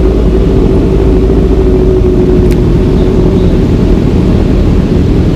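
Motorcycle riding at a steady speed, its engine droning under loud, steady wind rush on the rider's helmet microphone.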